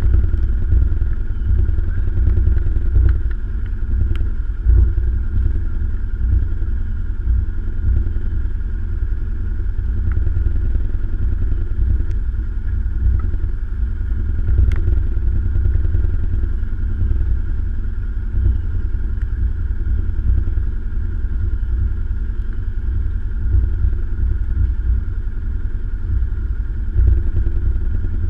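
An engine running steadily with a low rumble, holding an even pace with no revving.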